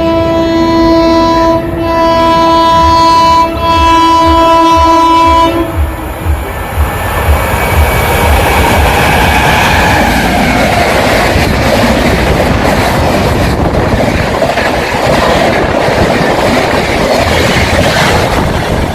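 A WAP7 electric locomotive's air horn sounds a long chord, dipping briefly twice, and cuts off about five and a half seconds in. The express then rushes past at speed, its wheels clattering over the rail joints in a loud, steady roar.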